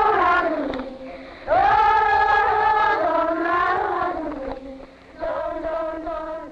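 Slow vocal singing, chant-like, with long held notes in phrases that break off and resume about a second and a half in and again about five seconds in.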